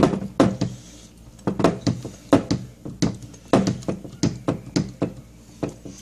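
YQK-70 hand hydraulic crimping tool being pumped to crimp a lug onto a cable. Each stroke of the handle gives a sharp click or knock, often in pairs, about two or three a second.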